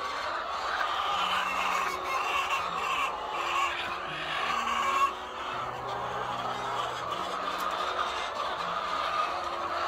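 A crowded flock of white laying hens clucking and squawking continuously, over soft background music with slow low notes.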